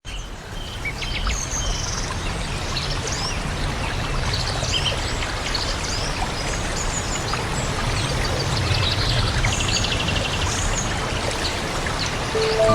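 Several small birds chirping and calling, short high notes and quick glides, over a steady rush of running water. A fast, evenly pulsed trill comes about nine seconds in.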